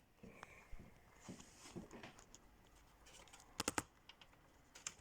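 Faint handling sounds: light scattered clicks and rustles of small objects being worked by hand, with a quick group of three sharp clicks a little past three and a half seconds in.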